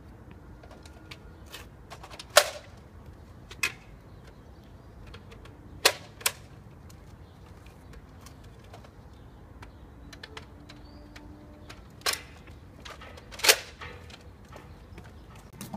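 Nerf blasters firing foam darts: about six sharp pops at irregular intervals, two of them close together, with fainter clicks in between.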